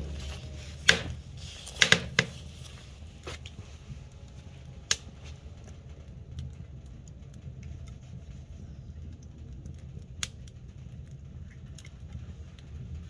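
Wood fire crackling in a metal stove: scattered sharp pops, a small cluster about two seconds in and single pops later, over a low steady background.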